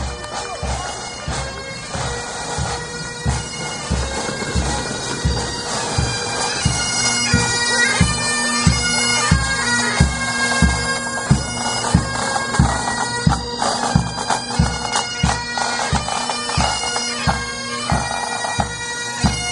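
Pipe band of Highland bagpipes playing a tune over their steady drones, growing louder over the first several seconds as the band approaches. A regular low beat runs underneath.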